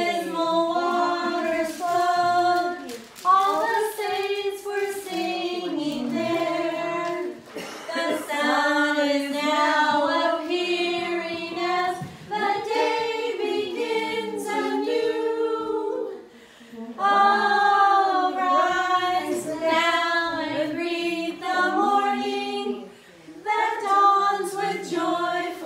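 Several voices singing together in harmony without instruments, a cappella, in phrases broken by short breaths.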